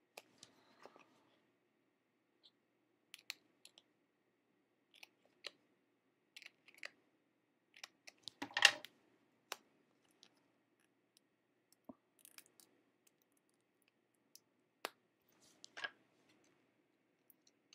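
Scattered small clicks and taps of paper and crafting tools being handled on a cutting mat, with one louder knock-and-rustle about 8.5 s in, over a faint low hum.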